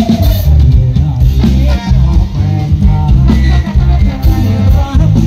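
Loud live ramwong-samcha dance music from a rot hae sound truck's speaker stacks, with a heavy, steady bass beat.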